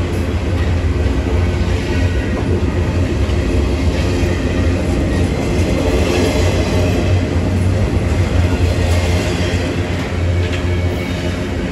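Empty intermodal well cars of a Norfolk Southern freight train rolling past: a loud, steady rumble of steel wheels on the rails.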